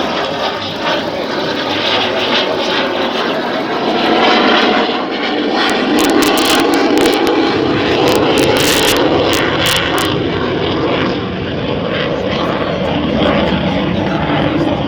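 The twin jet engines of an AIDC F-CK-1 Ching-kuo (IDF) fighter running loud during a display pass. The roar swells about four seconds in and stays strong for several seconds before easing slightly.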